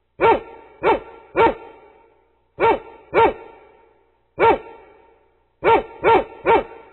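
A dog barking: nine sharp barks in uneven groups of one to three, each trailing off in an echo.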